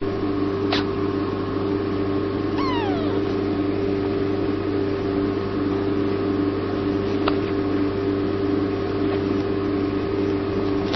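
A steady mechanical hum with a few fixed low tones. About two and a half seconds in comes one short squeak that falls in pitch, and there are two faint clicks.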